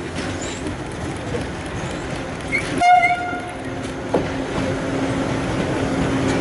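SNCF BB 26000 electric locomotive giving one short horn toot about three seconds in, over the steady noise of its intermodal freight wagons rolling past.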